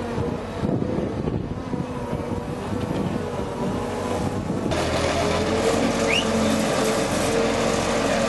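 Boat travel lift's engine running with a steady whine as the lift moves its load. About halfway through the sound suddenly gets louder and harsher.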